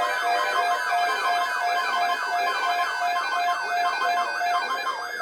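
Electronic alert alarm of the kind a weather alert radio sounds for an incoming warning: a fast yelping siren tone sweeping up and down about three times a second, over steadier beeping tones. It stops right at the end.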